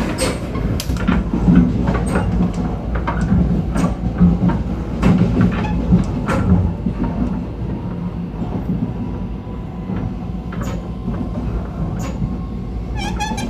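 Running noise at the gangway between two cars of a Taiwan Railways local train in motion: a steady low rumble with frequent clunks and knocks in the first half, then steadier running. A brief wavering squeal comes near the end.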